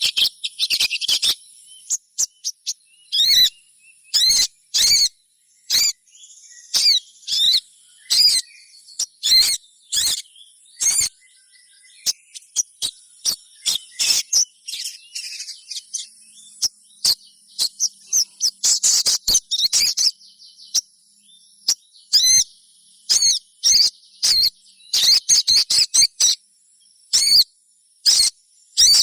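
Young sogon (brown-throated sunbird) calling: sharp, thin chirps repeated every second or less at uneven intervals, broken now and then by short twittering runs. A steady high-pitched hiss, like an insect, runs beneath.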